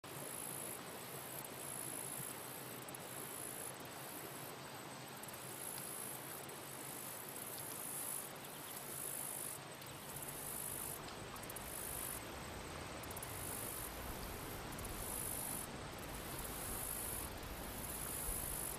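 A chorus of insects chirring high and faint, in pulses a second or so long with short gaps between. A low hum comes in about halfway through.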